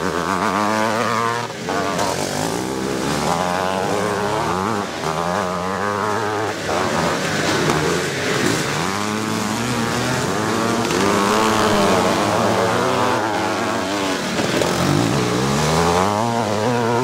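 Several vintage twinshock motocross bikes racing, their engines revving up and dropping back again and again as riders change gear, with more than one engine heard at once.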